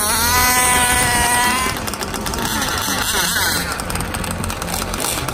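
A small motor's whine rising quickly in pitch, holding for about a second and a half, then fading into a steady background din.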